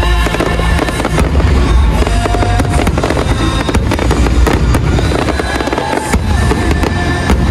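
Dense barrage of aerial fireworks shells bursting in rapid, overlapping bangs and crackles, with music playing underneath.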